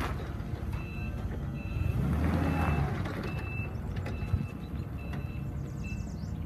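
Cat GC40K-STR forklift manoeuvring with its backup alarm beeping about once a second over the steady engine hum. The engine grows louder for about a second near the middle. A single sharp knock comes a little after that.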